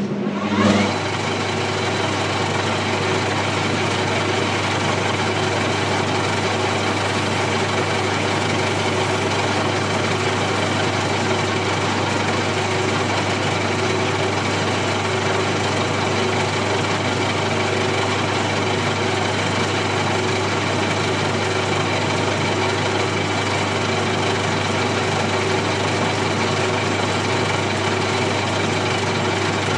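Old metal lathe switched on, a couple of loud knocks as it starts, then running steadily with a constant low hum and mechanical drive noise.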